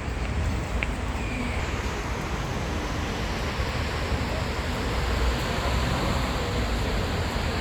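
City street ambience: a steady wash of traffic noise.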